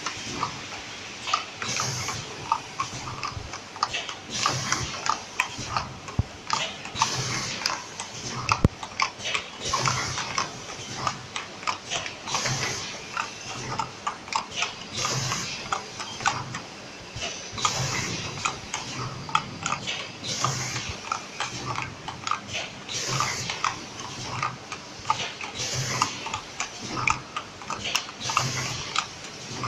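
Automatic packaging line, a filling and sealing machine, running: a steady mechanical clatter of clicks and knocks, with a louder cycle of clattering and hiss about every two and a half seconds.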